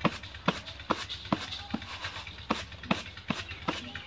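Bamboo winnowing tray being jerked rhythmically to sift broken wheat, giving about two to three sharp knocks and rattles a second.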